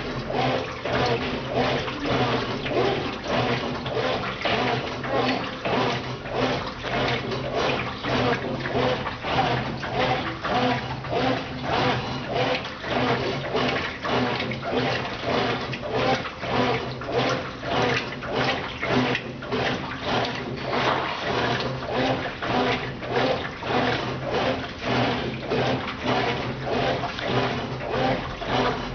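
Brastemp Ative! BWL11AR washing machine in its wash stage, agitating: water and laundry sloshing in rhythmic surges about twice a second over a steady motor hum.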